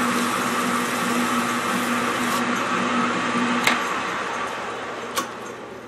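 Metal lathe running with sandpaper hissing against a spinning 3D-printed plastic ear cap. About two-thirds of the way through a click comes and the motor's steady hum stops, and the lathe's sound then fades as it coasts down.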